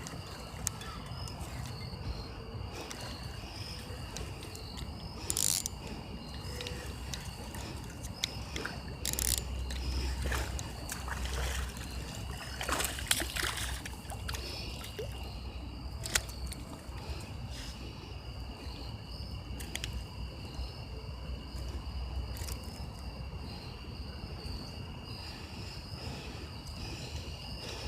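Steady high insect chirring over a low rumble of wind on the microphone, with scattered knocks and clicks of handling noise, a louder cluster of them about halfway through.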